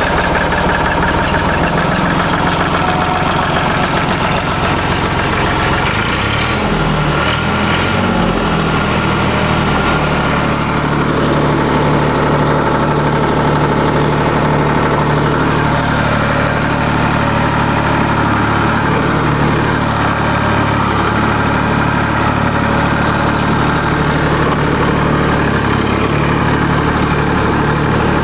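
Massey Ferguson 240 tractor engine running just after a cold start. Its speed changes between about six and ten seconds in, then it runs steady.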